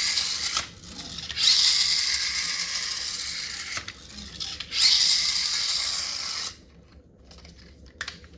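Toy RC jeep's small electric motor and gearbox whirring in three runs, the middle one longest, with short pauses between, then a single click near the end.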